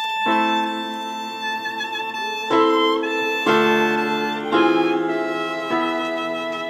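Digital keyboard and clarinet playing an instrumental introduction: sustained chords that change every second or so.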